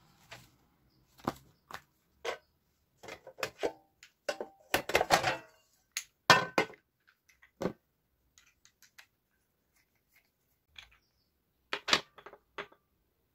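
Irregular clicks, knocks and clatter of hard parts handled on a table: a mini electric grill's pan and lid being taken off and set down, and its lid knob and screw being fitted.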